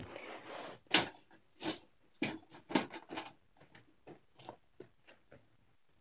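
Plastic and silicone fidget toys being handled and knocked together while the next one is picked out: a brief rustle, then a run of irregular knocks and clicks, the loudest about a second in, thinning out and stopping near the end.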